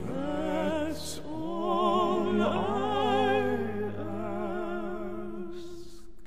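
Bass-baritone voice singing a held operatic line with wide vibrato, rising and falling in pitch, over sustained low orchestral notes. The music stops about six seconds in.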